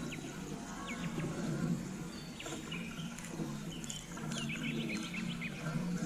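Eurasian tree sparrows giving short, scattered chirps while feeding, with a flurry of cheeps about four seconds in, over a low steady hum.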